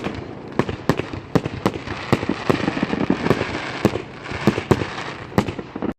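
Fireworks going off in an irregular string of sharp bangs, about two a second, over a crackling background; cuts off suddenly near the end.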